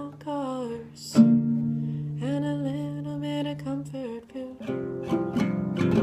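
A woman singing a slow, held melody over a strummed classical guitar. A little after four seconds the voice stops and the guitar carries on with busier strumming.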